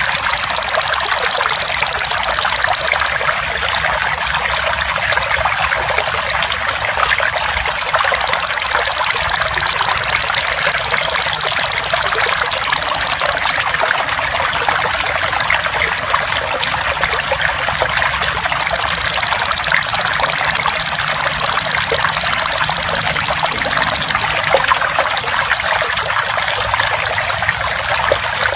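Steady trickling water with the loud, high, fast-pulsing buzz of a belalang emas (golden grasshopper) over it. The buzz comes in spells of about five seconds with gaps of about five seconds between them: it stops about three seconds in, returns about eight seconds in and again about nineteen seconds in, and the water runs on through the gaps.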